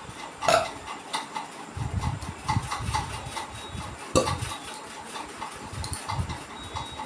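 Sharp clinks and knocks of objects being handled, the loudest about half a second in and about four seconds in, over a low uneven rumble from about two seconds in.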